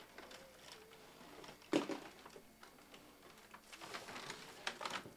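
Handling and rummaging of packaging while a plastic-wrapped LED video light panel is pulled out. There is one sharp knock a little under two seconds in, then light rustles and clicks near the end.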